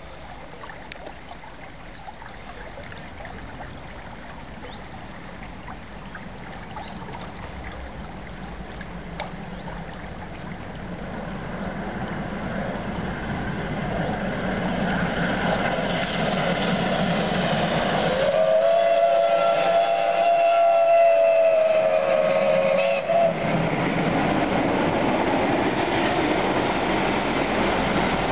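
Steam-hauled train approaching, its running noise growing steadily louder, with one long steam whistle blast about 18 seconds in, a held chord that rises slightly at the start and lasts about four and a half seconds. The source is SNCB 29.013, a 2-8-0 steam locomotive.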